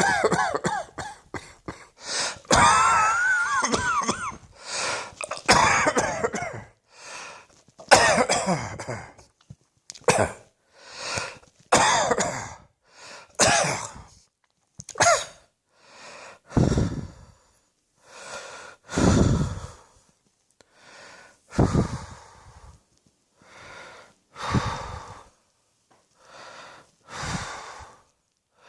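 A person coughing repeatedly with wheezing breaths: dense harsh coughing fits at first, then single coughs and wheezy breaths spaced further apart with pauses between them.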